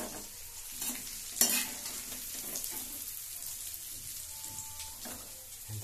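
Gram-flour gatte pieces sizzling steadily as they deep-fry in hot oil in a metal kadhai. A metal ladle clinks against the pan three times in the first second and a half, the loudest about a second and a half in.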